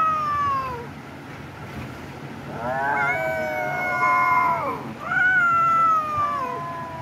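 A cat meowing in long, drawn-out calls: a falling call dies away in the first second, then two long meows of about two seconds each begin about two and a half and five seconds in, each sliding down in pitch at the end.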